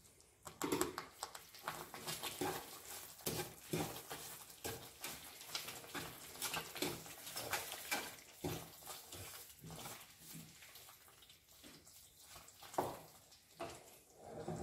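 Thick moong dal halwa mixture of milk, ghee and sugar bubbling and spluttering in the pan, with many irregular soft pops and plops, along with a wooden spatula stirring through it.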